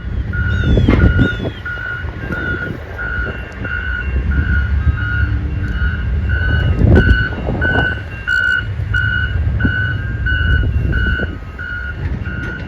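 Reversing alarm of construction machinery beeping steadily, about two beeps a second, stopping near the end, over a loud, uneven low rumble.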